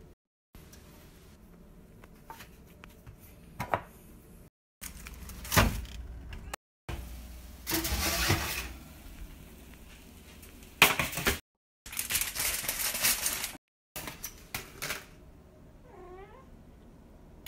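Short bursts of kitchen handling noise, with rustles and clatters, broken by several abrupt drop-outs to silence, and a cat meowing once near the end.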